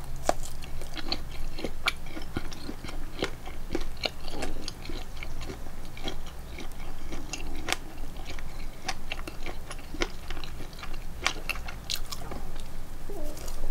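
A person chewing food close to the microphone, with many short, irregular mouth clicks.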